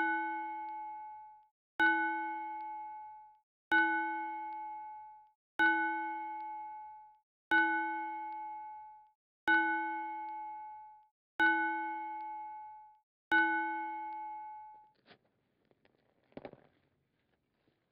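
A bell-like chime struck eight times, about every two seconds, each ring dying away over a second or so. After the last strike there are only faint rustles.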